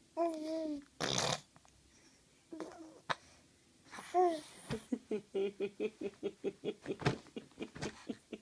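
A five-month-old baby coos, then blows a brief spluttering raspberry about a second in. From about five seconds in comes a run of quick laughter, about five pulses a second.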